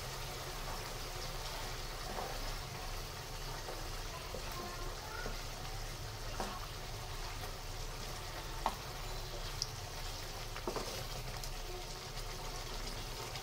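Hilsa in mustard gravy simmering in a non-stick wok, a steady bubbling sizzle, with a few light taps of a wooden spatula against the pan as it is stirred.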